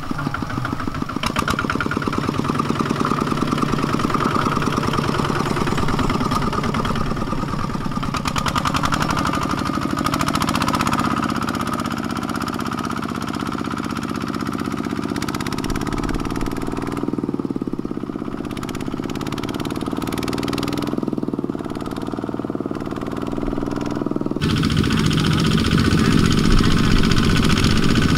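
Kubota single-cylinder diesel engines of two-wheel walking tractors running under load with a fast, even chugging. The engine note shifts in pitch a few times and changes abruptly and gets louder about four seconds before the end.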